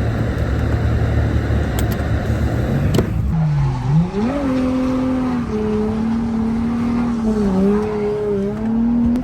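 Nissan 350Z's V6 engine running at a steady speed, then, after a click and a cut about three seconds in, revving up quickly and held high in the revs, its pitch wavering slightly as the throttle is worked.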